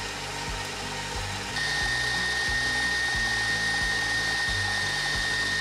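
KitchenAid stand mixer running with its wire whisk attachment, whipping heavy cream and powdered sugar toward stiff peaks. It starts at a low speed and is turned up about a second and a half in, where it gets louder and a steady high whine joins the motor noise.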